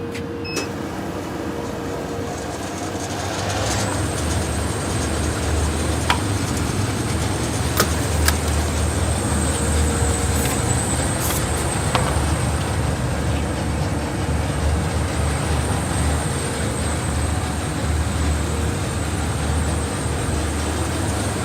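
SW ZDH-TS600 folding-box tape-applying machine starting up about three and a half seconds in and running steadily. It gives a low motor hum and a high, steady whine, with a few short clicks.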